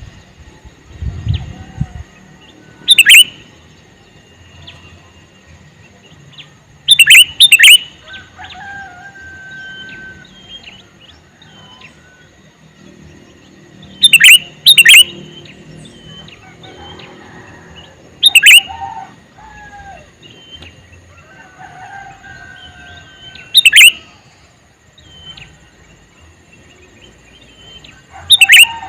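Sooty-headed bulbul (kutilang) calling: loud, short, sharp falling calls every few seconds, some in quick pairs, with softer whistled notes in between.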